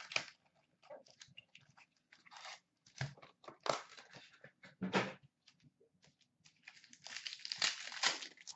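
Cardboard card box handled and opened, with scattered taps and rustles of foil card packs, then a longer stretch of foil wrapper crinkling and tearing near the end as a pack is ripped open.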